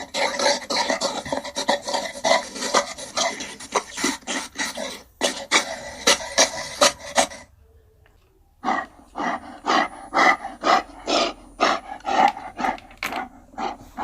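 Gorilla grunting in rapid, evenly paced series of about three grunts a second, in two long runs with a break of about a second midway.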